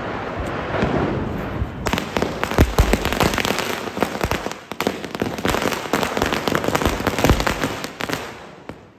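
Firecrackers going off on the ground in a fast, dense run of sharp cracks and pops. The run starts about two seconds in and dies away near the end.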